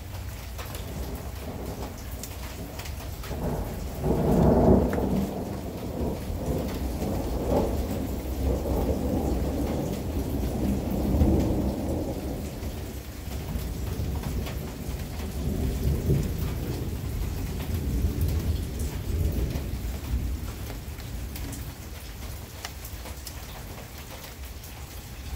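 Long rolling thunder, loudest about four seconds in, with further swells and a slow fade near the end. Rain patters steadily throughout.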